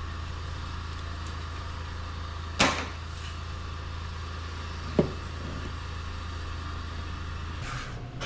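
A steady low machine hum with two sharp knocks, about two and a half and five seconds in; the hum stops near the end.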